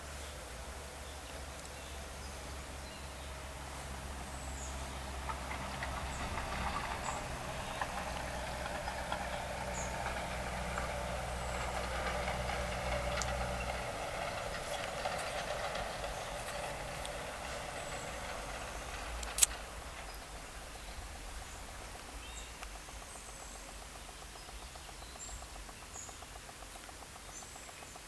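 A motor engine running at a distance, growing louder and then fading away over the river, with a low hum that cuts off about halfway. Short bird chirps come through now and then, and there is a single sharp click a little after the middle.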